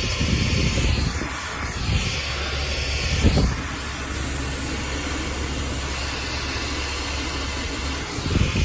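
Volvo XC90 air-conditioning blower running on max, a steady hiss of rushing air with a few low thumps. The owner takes this hissing for an AC fault in the car.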